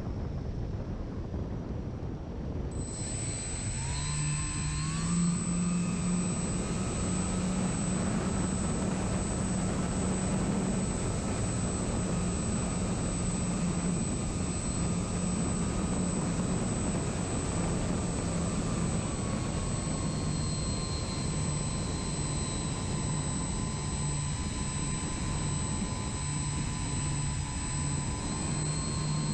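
Electric motor and propeller of an RC model plane, heard from the plane's onboard camera with wind rushing past. The steady whine comes in about three seconds in, rises in pitch a couple of seconds later, and drops a little in pitch about two-thirds of the way through.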